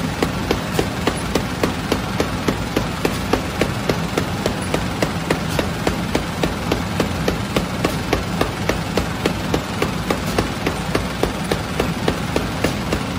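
Bakery conveyor oven machinery running: a steady low hum with an even, rapid clicking, about three clicks a second.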